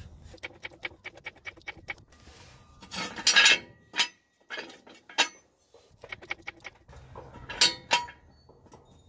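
Metal clanks of a jack and jack stand being worked under a truck: a run of quick light clicks, then several sharp metal clanks, some ringing briefly.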